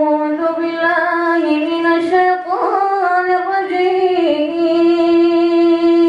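A boy's voice chanting Quranic recitation in the Moroccan style into a microphone: one long melodic line with drawn-out, ornamented notes, a quick upward glide about halfway through, and a long held note near the end.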